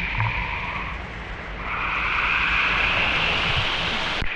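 Flowing river water rushing over a small waterfall, a steady splashing hiss that gets louder about a second and a half in.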